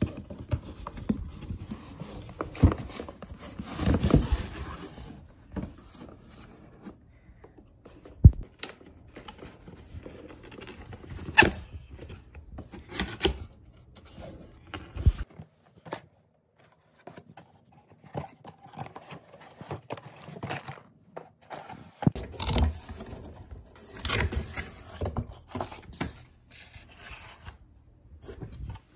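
A cardboard shipping box and its packing being opened and handled by hand: on-and-off scraping, rustling and rubbing of cardboard and paper, with a few sharp knocks.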